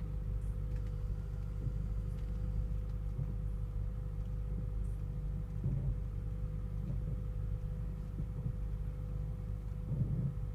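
Hybrid car driving slowly, heard from inside the cabin: a steady low road rumble with a faint steady hum, and brief louder moments about halfway through and near the end.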